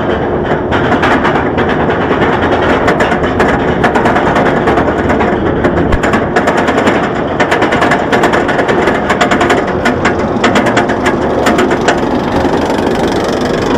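Bolliger & Mabillard roller coaster chain lift clattering as the train is hauled up the lift hill, with a rapid, continuous clicking of the anti-rollback ratchet under the cars.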